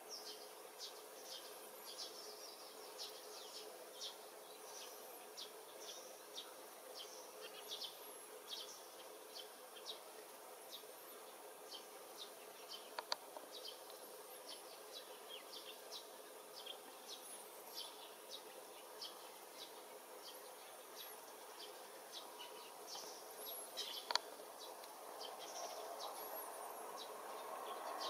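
Early-morning outdoor ambience: a steady stream of short, high chirps, about one or two a second, over a faint background hiss, with two sharp clicks, one about halfway and one near the end. A low rumble begins to build at the very end.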